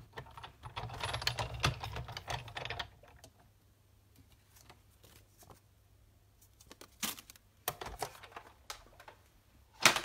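Sizzix Big Shot die-cutting machine being hand-cranked, its rollers pressing the cutting-plate sandwich through with a dense rattling grind for about three seconds. A few sharp knocks follow near the end.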